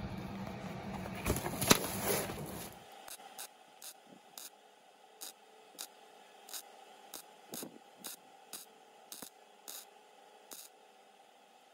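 A Miller MIG welder running a weld on a van's rocker panel: a steady crackling buzz that cuts off suddenly about three seconds in. After it comes a string of faint short ticks, roughly two a second.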